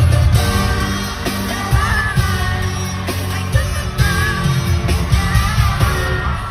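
K-pop song with women's singing over a heavy bass beat, played loud through an arena sound system.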